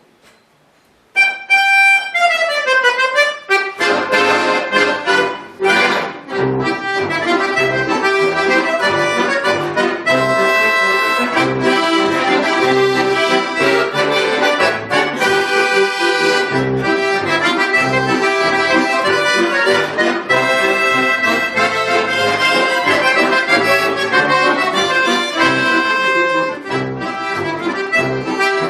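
A bayan (Russian button accordion) playing solo. It enters about a second in with a quick falling run of notes, then settles into full chords over a pulsing bass.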